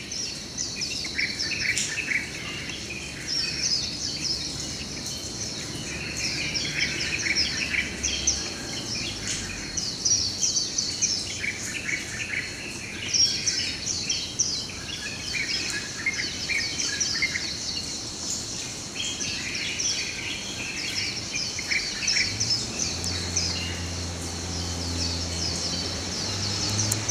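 Dawn chorus: many birds chirping at once in dense, overlapping short calls, over a steady high insect drone. A low hum comes in about three-quarters of the way through.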